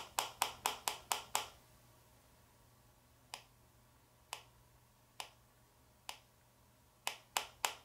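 Razor blade tip scraping and tapping on an HTC One X's glass screen in a scratch test, making sharp ticks. The ticks come about four a second at first, then singly about a second apart, then three in quick succession near the end.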